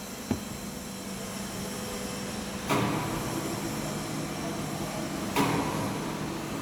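Automatic can filling and sealing machine running: a steady mechanical hum with a single click just after the start, becoming louder and busier about two and a half seconds in, with another surge after about five seconds.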